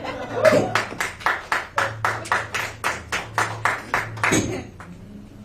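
Hand claps in a quick, steady rhythm, about five a second for roughly four seconds, then stopping.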